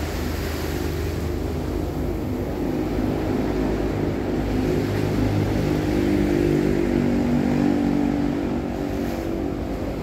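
A boat's engine running, growing louder to a peak a little past the middle and then easing off.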